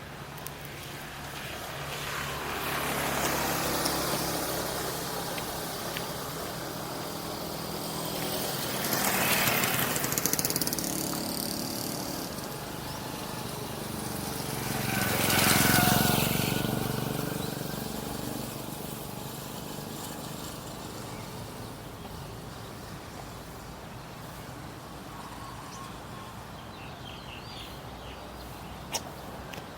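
Road traffic: three motor vehicles pass one after another, each swelling up and fading away, the loudest about halfway through. A single sharp click comes near the end.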